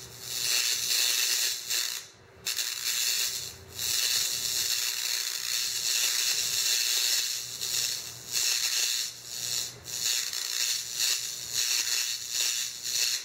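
High-voltage spark from an ignition transformer arcing between the tip of a coated stick electrode and a steel plate: a steady hiss. It cuts out briefly about two seconds in and dips several more times, because the arc gap is not being held constant.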